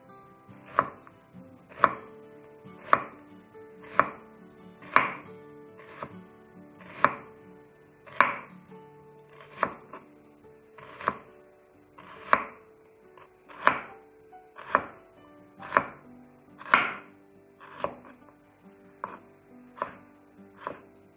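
Kitchen knife slicing a red onion on a wooden cutting board: a sharp chop of the blade onto the board about once a second, coming a little quicker near the end.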